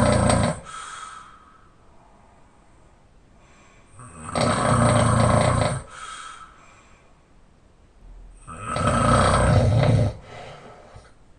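A person snoring open-mouthed while lying on their back: two loud, rasping snores about four seconds apart, each followed by a softer breath, with the last moment of an earlier snore right at the start.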